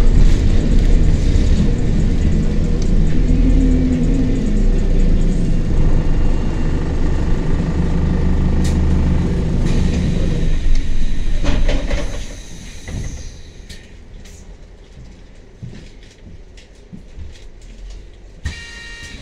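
London double-decker bus's diesel engine running under way, a steady low drone heard from inside the lower deck. About twelve seconds in it dies away as the bus slows and stops, leaving a quiet idle with a few clicks. Near the end a buzzing tone starts: the door warning buzzer.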